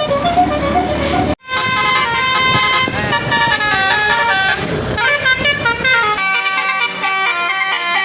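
Bus 'telolet' multi-tone air horns playing a quick stepping melody. The sound drops out briefly about a second and a half in and resumes with another horn tune over a low rumble. The rumble falls away about six seconds in, leaving the horn notes alone.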